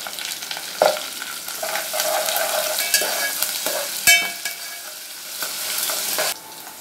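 Onions, green chillies and curry leaves frying in hot oil in a metal pot, sizzling, while a metal spoon stirs in freshly added ginger-garlic paste, scraping and knocking against the pot. The sizzle cuts off suddenly near the end.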